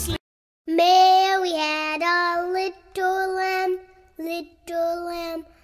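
A child's voice singing a slow nursery tune unaccompanied, in long held notes with short gaps between them. The singing starts after a brief silence at the start.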